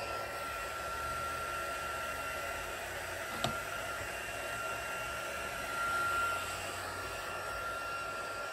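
Embossing heat tool (craft heat gun) running steadily, a rush of blown air with a thin steady whine, as it heats to melt embossing powder. A single sharp click about three and a half seconds in.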